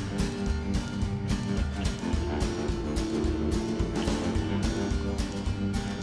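Background music: guitar-driven rock with a steady drum beat.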